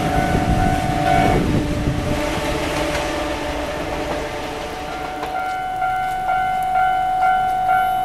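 Japanese level-crossing bell ringing, which stops about a second in while a train's rumble fades away. About five seconds in the electronic crossing bell starts again, a quick repeating ding about three times a second, as the crossing closes for the next train.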